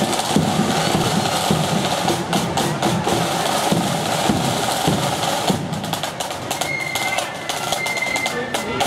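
Marching flute band playing a march, with snare drums rattling over a steady drum beat and flutes above.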